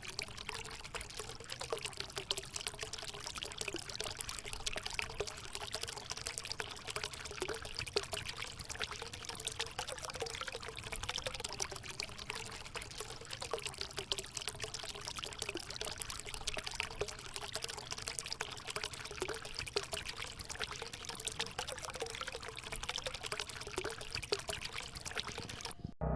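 Water from a small fountain pouring and splashing steadily, stopping abruptly near the end.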